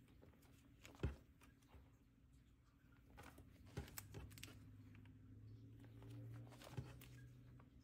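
Clear plastic pocket pages of a ring binder being turned by hand: faint crinkles and light clicks, the sharpest about a second in. A faint low hum runs through the second half.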